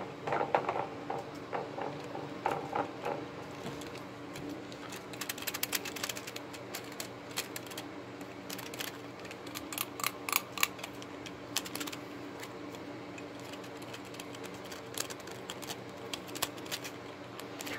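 Light clicks and rattles of a die-cast toy monster truck being turned over in the hands close to the microphone, scattered and busiest in the middle, over a faint steady hum.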